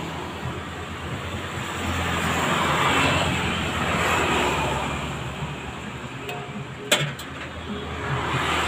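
Road traffic passing close by, a rushing noise that swells and fades as vehicles go past, with one sharp click about seven seconds in.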